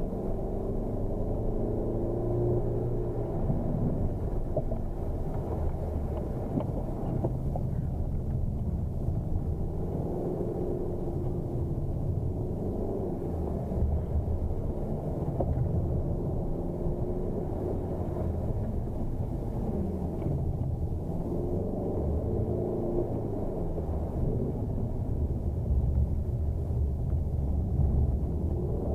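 Ford Focus engine revving up and dropping back again and again as the car accelerates, shifts and brakes through a slalom course, heard from inside the cabin over a steady low road rumble.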